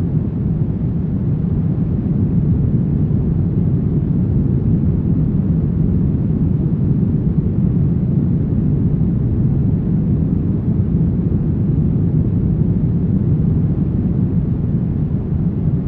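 Brown noise: a steady, deep rumbling hiss with most of its energy in the low end and little above the treble, unchanging throughout.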